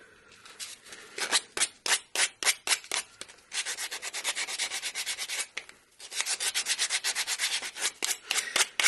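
A hand-held piece of 180-grit sandpaper rubbing the edge of a small wooden checker disc, easing its edge. There are a few separate strokes at first, then quick, even back-and-forth strokes, with a short pause a little past the middle.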